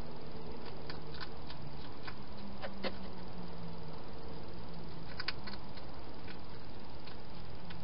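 Hedgehog eating from a bowl inside a plastic feeding box: scattered sharp clicks and crunches of chewing, over a steady hiss.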